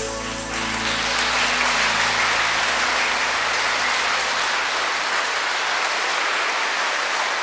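Audience applauding steadily in a hall, while the last held notes of the music fade out in the first second or two.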